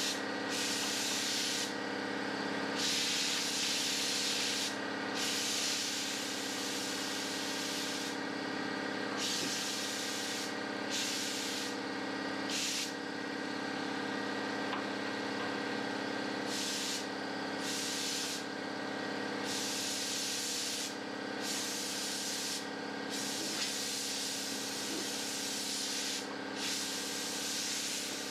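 Rust-preventive paint being sprayed onto a floor pan in repeated short hissing bursts, a dozen or more, over a steady mechanical hum.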